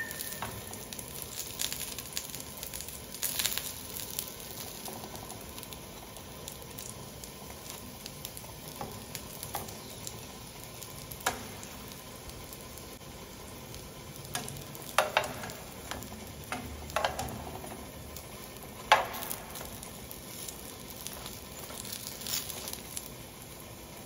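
Sausages sizzling steadily in hot oil in a non-stick frying pan, with a few sharp metallic clicks as metal tongs knock against the pan while turning them.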